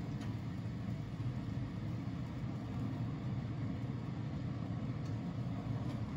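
Steady low rumbling noise without clear tones or rhythm.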